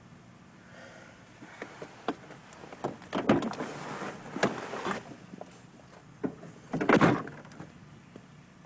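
A car door is opened and a person climbs out of the driver's seat, with a series of clicks and knocks. The door is then slammed shut near the end, the loudest sound.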